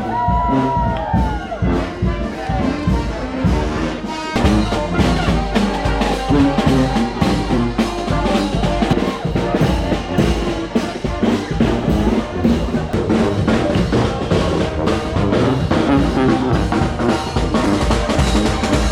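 New Orleans second-line brass band playing: horns over a steady drum beat, at a street parade.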